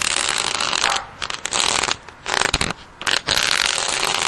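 Steel nozzle on the end of a garden hose dragged across cement pavement, a gritty metal-on-concrete scraping in repeated strokes with short breaks between them.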